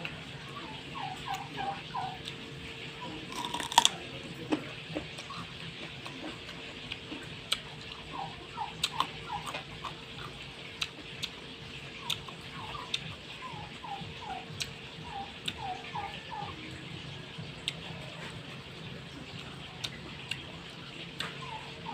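Chewing raw carrot with a mouthful of sharp crunches, the loudest a little under four seconds in. Behind it, fowl clucking in short runs of three to five calls.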